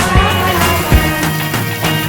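Background pop song in an instrumental stretch between vocal lines: a steady kick-drum beat under sustained bass and chords.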